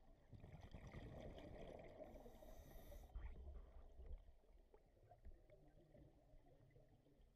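Faint scuba regulator breathing underwater: a rough, bubbling exhale over the first three seconds with a brief hiss near its end, then quieter.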